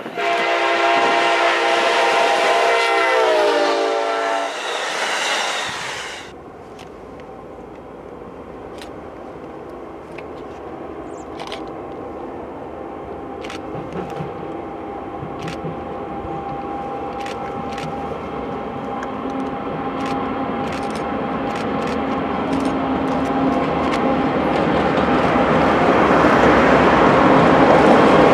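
A locomotive's multi-chime air horn blows a long chord whose pitch drops about four seconds in as it passes, then cuts off abruptly. After that, the diesel locomotives of a freight led by Norfolk Southern's Pennsylvania Railroad heritage unit 8102, a GE ES44AC, run toward the listener, their rumble growing steadily louder.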